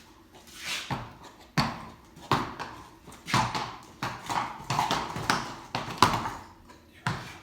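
Horse's hooves striking hard ground at a walk: about nine separate hoof falls, roughly one every three-quarters of a second, each a sharp knock that quickly dies away.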